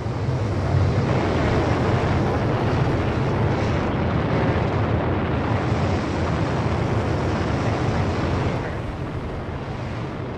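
Steady, loud rumbling rush of noise with a heavy low band, easing slightly near the end.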